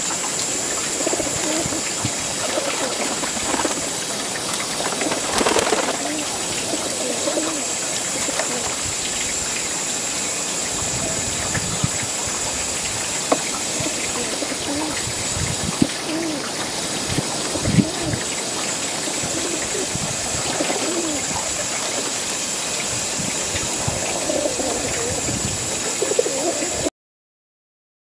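A flock of feral pigeons cooing, many soft low calls overlapping throughout over a steady hiss. The sound cuts off suddenly near the end.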